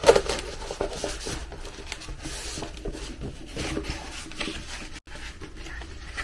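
A large diamond painting canvas with a glossy plastic cover being rolled up into a tube by hand on a tabletop: uneven rustling and crinkling with small scrapes and taps.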